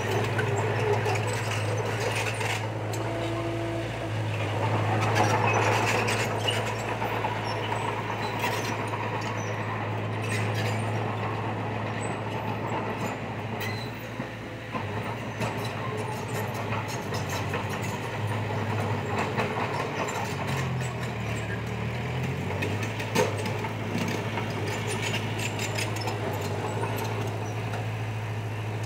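A heavy machine's diesel engine running steadily, with scattered clanks and clicks. Its pitch dips and then briefly rises about three-quarters of the way through.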